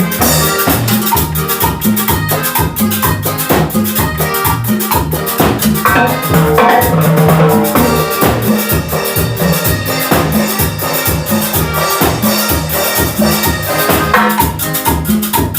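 Salsa band playing an instrumental passage with no singing: a steady dense beat of drums and hand percussion over a moving bass line, with melodic instrument lines above.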